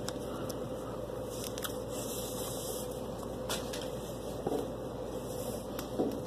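Quiet handling noise: a few faint light clicks and scrapes over a steady low hum.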